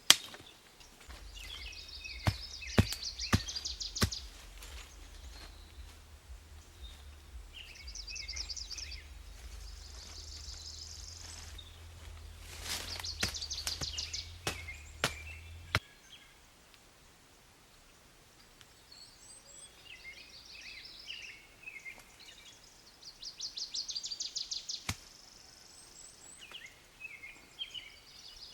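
Small birds singing in short, repeated high trills, with several sharp knocks in two clusters, a couple of seconds in and again around the middle, over a low rumble that stops about halfway.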